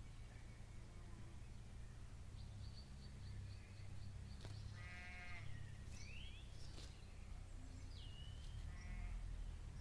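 Night-time wildlife calls over a steady low rumble. A fast series of high chirps comes first, then a nasal, bleating call about five seconds in, repeated briefly near the end, with short whistled glides, one rising and one falling, in between.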